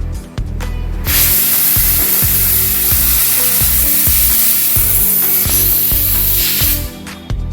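Spray hissing steadily at a motorcycle chain being cleaned, starting about a second in and stopping shortly before the end, over background music.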